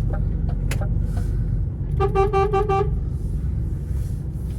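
A vehicle horn toots once, for just under a second, about two seconds in, over a steady low engine rumble.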